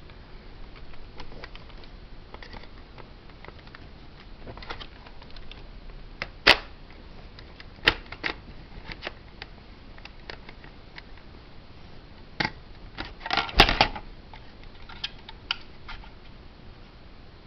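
Plastic toy M16 rifle being handled, giving scattered sharp clicks and rattles. The loudest single clicks come about six and eight seconds in, then a quick flurry of clicks comes near the end.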